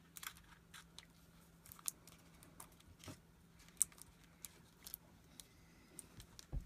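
Hands handling a light fixture and its wiring: scattered small clicks, taps and crinkles, the sharpest about two and four seconds in, over a faint steady hum.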